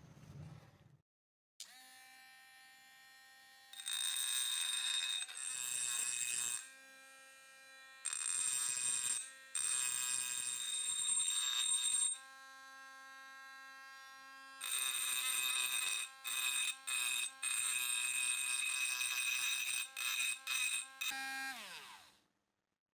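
A small electric power tool's motor runs at a steady pitch, with repeated louder stretches of harsh noise as it works against the metal. Near the end the motor winds down, its pitch falling before it stops.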